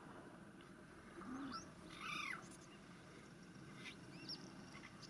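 Wild birds calling faintly: a few separate short calls and a high chirp.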